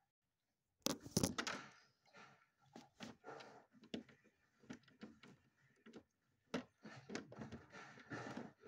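Close handling noise: a loud cluster of knocks and clacks about a second in, then a run of smaller clicks, taps and rustles.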